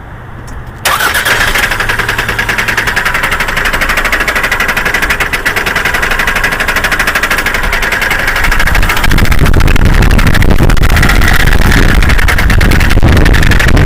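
Toyota Camry engine starting about a second in and running with a rapid, even knock. It gets louder and deeper about nine seconds in.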